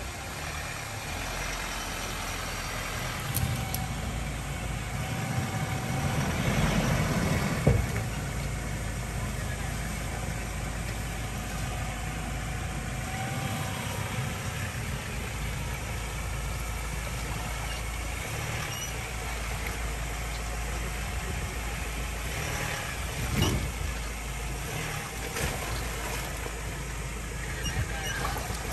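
Pickup truck engine running steadily while driving off-road, swelling briefly before a sharp knock about eight seconds in, with another knock a little over twenty seconds in.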